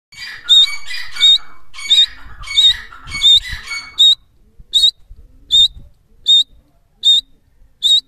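Grey francolin calling: about eleven loud, high whistled notes in an even series, roughly one every three quarters of a second. Over the first four seconds the notes come with a harsher, rasping layer of sound; after that they ring out clean and single.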